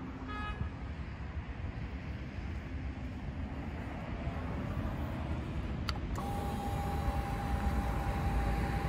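Steady low wind rumble outdoors. About six seconds in, a sharp click as the 2020 Yamaha R25's ignition is switched on, followed by the steady whine of its electric fuel pump priming before the engine is started.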